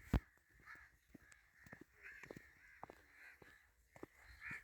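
Birds calling over and over in short repeated calls, with scattered light clicks and one sharp knock just after the start.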